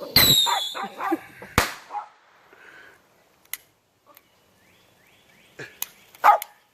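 Firework going off: a falling whistle at the start, then a sharp bang about a second and a half in. A dog barks over the whistle and again several times near the end.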